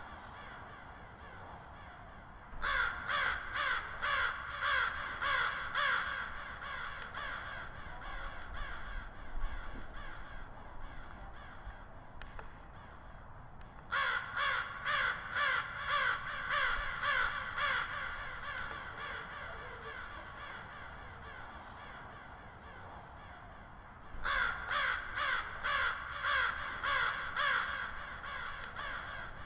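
Crow cawing in three bouts of quick repeated caws, about eight caws in each bout. Quieter calls and background sound fill the gaps between bouts.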